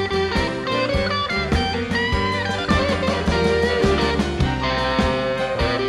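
Background music: an instrumental passage of a 1960s song, electric guitar over bass and drums with a steady beat.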